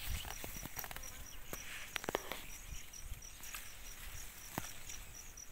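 Insect, cricket-like, chirping at a high pitch in an even repeating rhythm, with scattered light clicks and rustles of footsteps through the watermelon vines.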